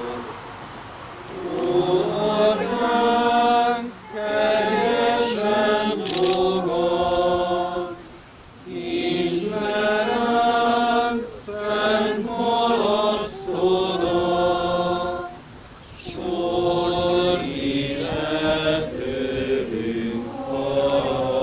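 Voices singing a slow Hungarian church hymn in long phrases, with short breaks between them.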